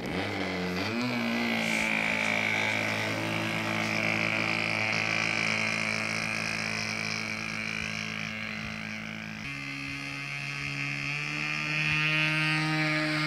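Radio-controlled Hot Stick model airplane's engine running steadily on the ground, then throttling up to a higher pitch about nine and a half seconds in and getting louder as the plane starts its takeoff roll.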